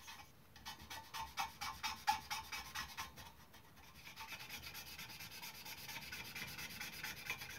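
Fibreglass brush scrubbing brass sheet in quick back-and-forth strokes, several a second, cleaning the metal ready for soldering. The strokes are sharper for the first few seconds, then turn into softer, steadier scrubbing.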